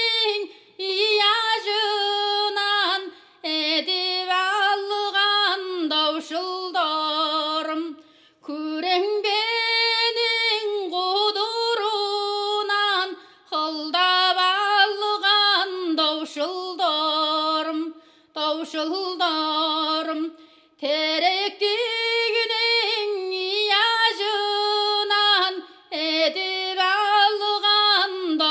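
A woman singing a Tuvan folk song unaccompanied, in phrases of a few seconds each with short breaths between.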